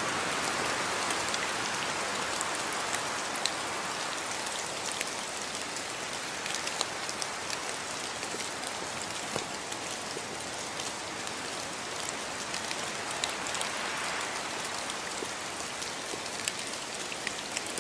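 Steady rain falling: a continuous hiss with many individual drops ticking sharply close by.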